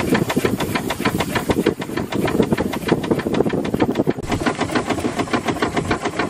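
Small steam launch engine running under way, beating steadily at about six strokes a second, with some steam hiss and water noise.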